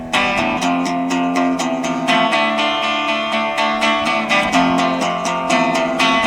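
Acoustic guitar strummed in a steady rhythm, an instrumental break in a bard's song with no singing.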